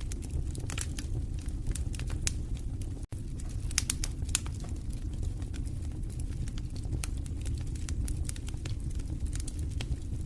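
Wood fire in a fireplace crackling, with frequent sharp pops and snaps over a steady low rumble of flames. The sound drops out for an instant about three seconds in.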